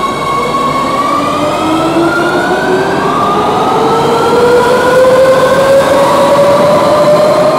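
Madrid Metro train accelerating, its traction motors whining in several tones that rise steadily in pitch over a rumble of wheels on rail.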